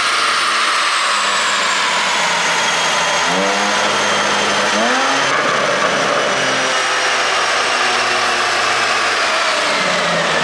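Porsche 718 Boxster 4.0 GTS's naturally aspirated 4.0-litre flat-six, running under a loud, steady rush of noise with a high whine that slowly falls. It gives two short revs, about three and five seconds in.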